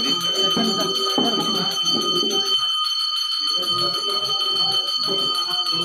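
Temple bell ringing steadily and without a break, a cluster of high metallic tones, over people talking nearby.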